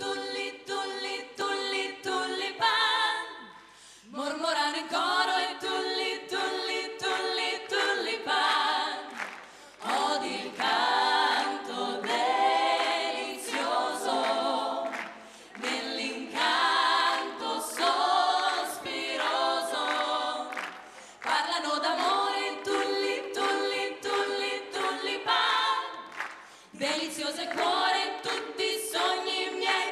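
A group of women singing together a cappella into microphones, in phrases separated by short breaks.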